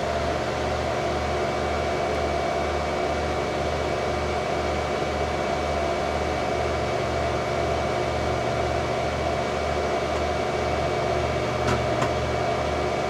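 Desktop PC running, its fans humming steadily, with a low hum that pulses about twice a second and a couple of faint ticks near the end.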